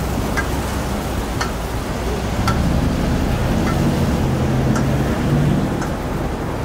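Okonomiyaki sizzling on a large flat-top griddle: a steady hiss over a low rumble, with faint light clicks about once a second.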